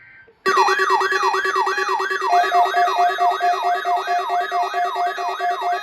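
Electronic siren-like alarm starting abruptly: a tone sweeping rapidly downward about three times a second over a steady low tone, with a second pulsing tone joining about two seconds in.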